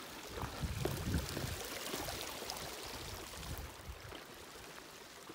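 Small mountain creek trickling over rocks, with footsteps on the trail and scattered small clicks. Some low rumbling about a second in.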